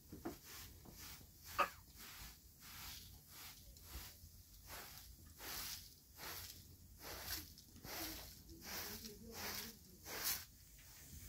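Short straw hand broom sweeping dirt and crumbled mud off a carpet and floor mat: repeated brushing swishes, about one and a half a second, with a sharper click about a second and a half in.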